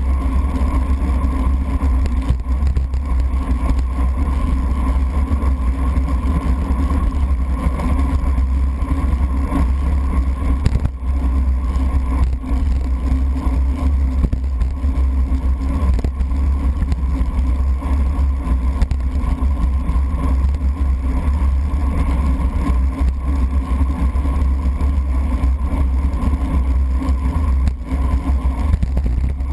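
Steady low rumble of wind and road vibration heard through a bike-mounted GoPro HD Hero sealed in its waterproof housing, as the road bike races along a wet street.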